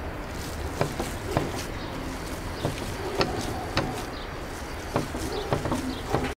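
Hands kneading a çiğ köfte mixture of raw minced meat, bulgur and pepper paste in a metal tray, with about ten irregular sharp slaps of hands and mixture against the tray over a steady low background rumble.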